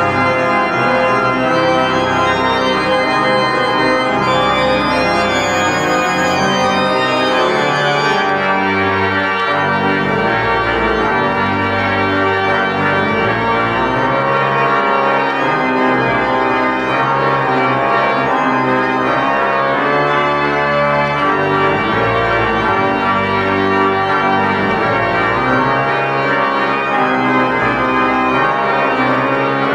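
Three-manual church organ playing a slow piece of sustained, overlapping chords over a moving bass line, steady in loudness throughout.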